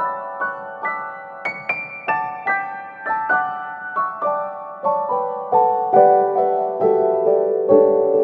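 Background music: a gentle piano melody, notes struck in a steady flowing run.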